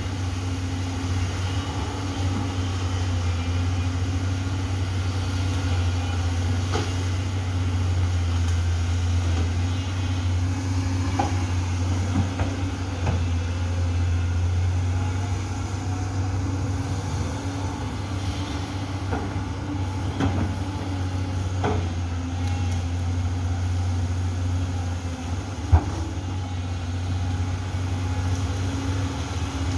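Amphibious swamp excavator's diesel engine running steadily under work, with a few scattered sharp knocks, the loudest near the end.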